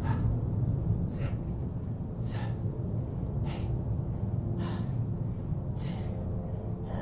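A man breathing hard in time with bodyweight squats: six sharp breaths, about one every second and a bit, one per rep, over a steady low background rumble.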